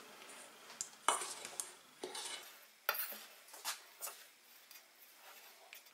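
Dry wheat and rye flour being stirred together with a metal spoon in a stainless steel bowl: soft scraping with a few light clinks of the spoon against the bowl, the sharpest about a second in and about three seconds in.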